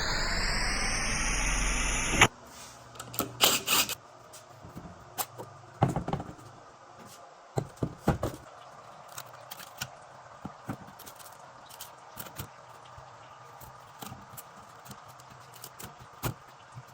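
A rising whooshing sweep cuts off abruptly about two seconds in. It is followed by scattered metallic clicks, taps and knocks of hand tools and parts being handled during a transmission teardown.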